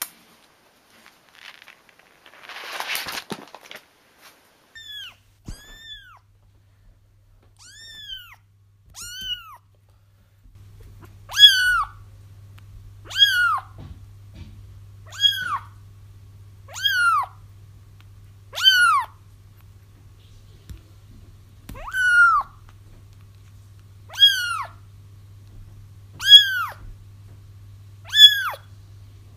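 Kittens crying with high meows that rise and then fall, the distress calls kittens make for their mother. The cries are faint and scattered at first, then become loud and regular, about one every two seconds, from about eleven seconds in. A low steady hum runs under the later part, and there is a brief rustle about three seconds in.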